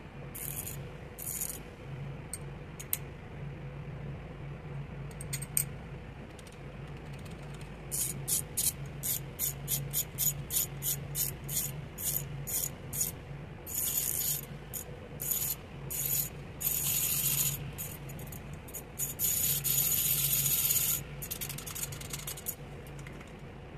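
Ratchet from a budget VEVOR socket set clicking as its handle is swung back and forth. It goes in short runs of quick clicks, then in longer continuous runs near the end where the clicks blur into a buzz. A steady low hum runs underneath.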